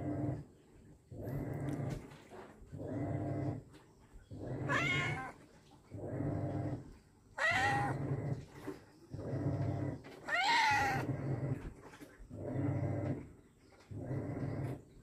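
A heavily pregnant domestic cat in labour, her waters broken, making a low rough sound that repeats about every second and a bit, broken by three loud yowling meows near the middle.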